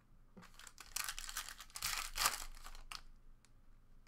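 Foil trading-card pack being torn open and its wrapper crinkled, a crackling rustle lasting about two and a half seconds that is loudest around the middle.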